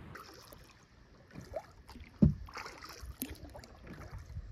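Kayak paddling: the paddle dipping and splashing in the water in irregular strokes, with a sharp thump about two seconds in.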